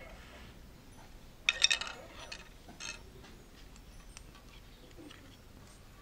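Hard plastic clicking and clattering as the opened shell of a small USB charger is handled, with a burst of clicks about a second and a half in and a few lighter single clicks after.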